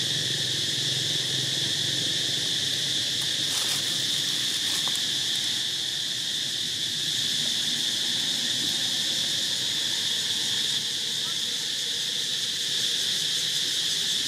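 Chorus of insects, a continuous high-pitched buzz that holds steady without a break.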